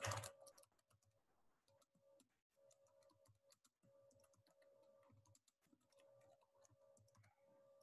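Faint computer-keyboard typing: scattered soft key clicks, louder for the first half-second, over a faint steady hum.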